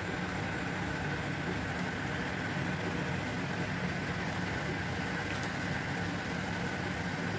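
Steady low rumbling hum with a faint constant whine above it, even throughout.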